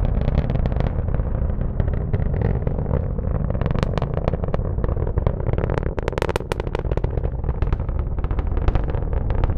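Falcon 9 first stage's nine Merlin 1D engines heard from a distance during ascent: a deep continuous rumble laced with irregular crackling.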